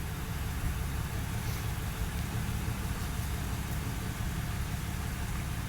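A motor vehicle's engine idling steadily with a constant low rumble, under an even hiss of street noise.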